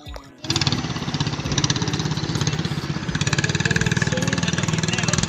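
A katinting, a small single-cylinder longtail boat engine, cuts in suddenly about half a second in and runs loud and fast with a rapid, even firing rhythm.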